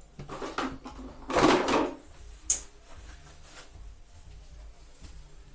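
Hands handling washing-machine parts: a few knocks and rustles, a longer scraping rustle about a second and a half in, then a single sharp click.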